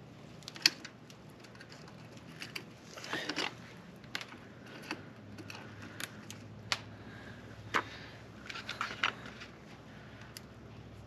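Scattered metallic clicks and clinks with two short rattles from a motorcycle drive chain and its parts being handled and fitted by hand, the sharpest click about a second in.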